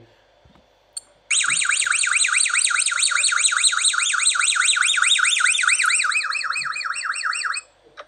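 Kea (Nestor notabilis) giving its rare "whistle" call: a rapid, even string of rising-and-falling squeaky notes, several a second, like a car alarm or a squeaky dog toy squeezed over and over. It runs for about six seconds, fading slightly before it stops.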